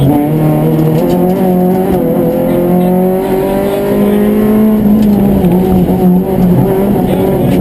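Citroën Saxo rally car engine heard from inside the cabin, running hard at high revs under full acceleration. Its pitch climbs and dips several times as the car is driven flat out.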